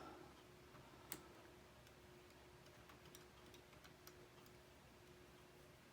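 Near silence with a few faint, scattered clicks of plastic K'nex pieces being handled and slipped into place, the sharpest about a second in, over a faint steady hum.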